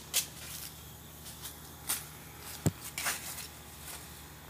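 Flip phone thrown against a stone block retaining wall: a sharp knock just after the start, then a few scattered clicks and knocks over a faint background as the thrower walks across the grass toward it.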